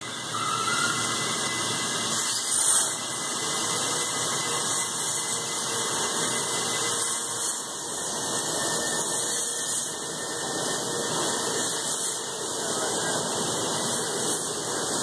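A gantry-mounted plasma torch cutting steel plate on a cutting table, giving a steady high-pitched hissing squeal that swells briefly about three seconds in.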